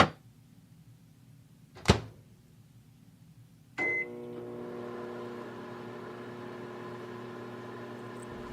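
Two sharp clunks, then a short beep about four seconds in as a microwave oven starts, followed by the oven's steady hum as it runs, heating the hot water bottle.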